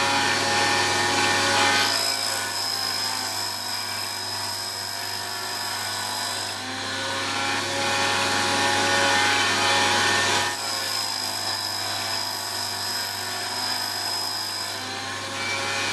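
Wolf Precision Valve Refacer running, its grinding wheel cutting a worn exhaust valve face to a 30-degree angle to remove the step. Over the steady motor hum and grinding hiss, a high grinding whine comes in twice, for about four to five seconds each time.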